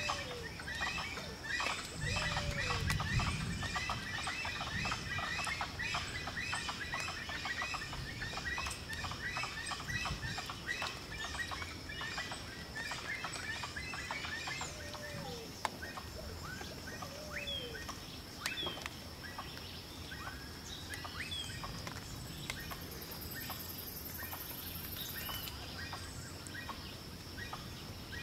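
Birds chirping in a dense, rapid chatter that thins out about halfway through, with a few short falling calls, over a steady high insect whine; a higher insect buzz joins for a few seconds near the end, and there is a brief low rumble about two seconds in.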